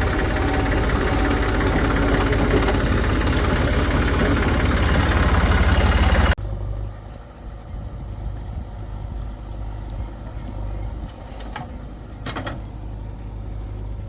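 Heavy diesel machinery engine running loud and steady, then abruptly replaced about six seconds in by a quieter engine sound, with a couple of short knocks near the end.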